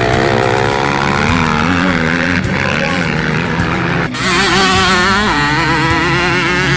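Motocross dirt bike engines revving, their pitch rising and falling with the throttle as the bikes ride past. About four seconds in, the sound switches abruptly to a louder, higher-pitched engine.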